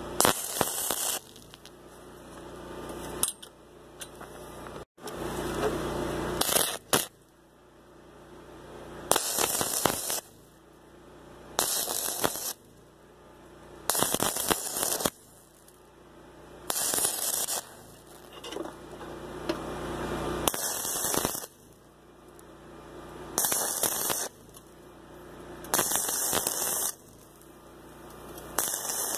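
Stick-welding arc crackling in short bursts of about a second each, roughly one every two to three seconds. These are small stitch welds on thin EMT conduit, kept short so the arc doesn't blow through the tube.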